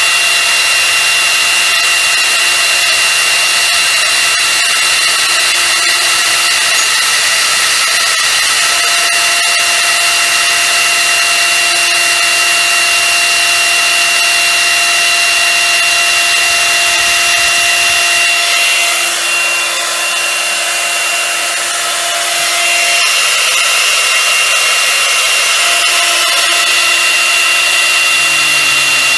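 TeknoMotor high-speed milling spindle driving a 4 mm endmill dry through aluminium: a steady high-pitched whine over the hiss of cutting. About two-thirds of the way through the whine drops out and the sound goes slightly quieter for a few seconds, then it resumes.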